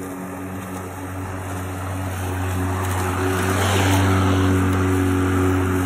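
Erbauer ELM18-Li 36V cordless lawnmower's electric motor and blade running while cutting grass: a steady hum with a rushing noise, growing louder as the mower comes closer and loudest about four seconds in.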